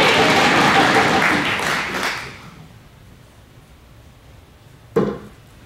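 Crowd applause dying away over the first two seconds, then a single sharp thud about five seconds in: a steel-tip dart striking the bristle dartboard.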